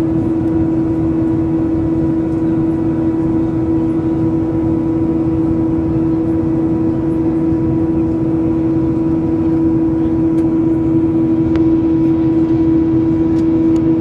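Airliner cabin noise in flight: a steady low rush of engines and airflow under a strong, steady hum, growing a little louder near the end.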